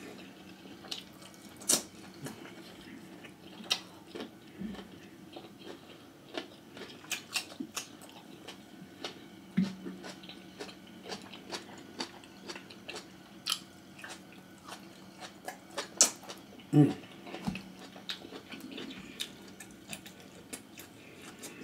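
Close-up mouth sounds of eating seafood by hand: wet chewing, lip smacks and sharp irregular clicks, with the loudest smacks a little after the middle.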